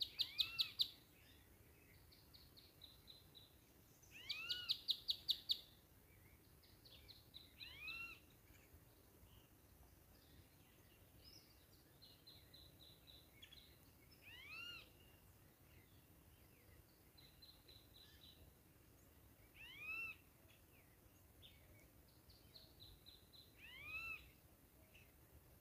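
Birds calling: fast chattering trills near the start and again about four seconds in, then single rising-and-falling chirps repeated every few seconds over a faint background hiss.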